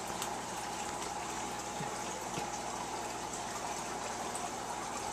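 Steady running-water sound of a turtle tank's filter pump circulating water, with an even hum under it.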